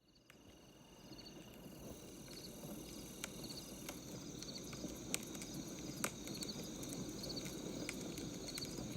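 Wood fire crackling, with a dense low crackle and occasional sharp pops, fading in over the first couple of seconds. Crickets chirp steadily in short repeated trills behind it.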